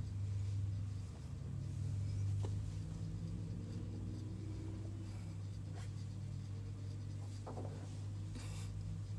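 Fingertips softly brushing and scratching close to the microphone, with a few light clicks, over a steady low hum.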